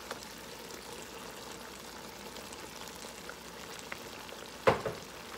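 Picadillo in tomato sauce simmering in a wide pan, a steady soft bubbling hiss. A single sharp knock comes about four and a half seconds in.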